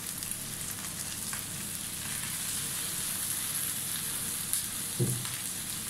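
Oil sizzling steadily in a stainless steel pan of sautéing garlic, onion, ginger and green chilies as raw fish slices are laid in on top. There is a short low thump about five seconds in.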